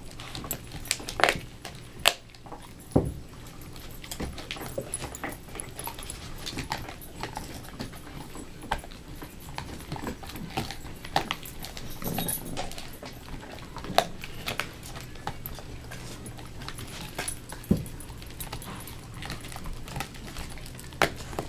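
Dog gnawing a chew bone held between her paws: irregular clicks and crunches of teeth on the bone, with a few louder cracks.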